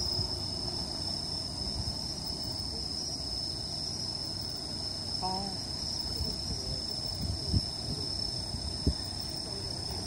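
Crickets trilling in a steady, unbroken high-pitched drone, with two brief low thumps in the second half.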